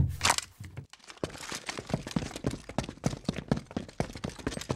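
Sound-effect sting over an animated logo: a sudden heavy hit with a short whoosh, then a fast, irregular run of sharp clicks and crackles that keeps going.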